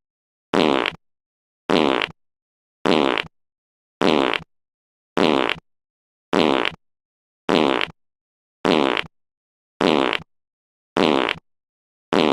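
The same short fart sound effect played over and over, about once every second or so, with dead silence between each one.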